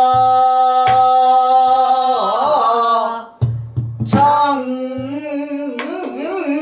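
Pansori singing: a long, wavering held note that breaks off about three seconds in, then picks up again a second later. Under it, a buk barrel drum beats time with low thumps and a few sharp stick strokes, loudest just as the voice breaks.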